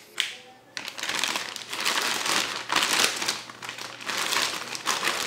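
Thin clear plastic bag crinkling and rustling as hands pull a drill out of it, starting about a second in.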